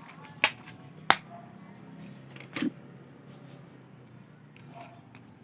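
Three sharp clicks of small hard parts being handled, from the accessory bits and plastic case of a mini grinder set: one about half a second in, one about a second in, and a slightly longer click-knock at about two and a half seconds.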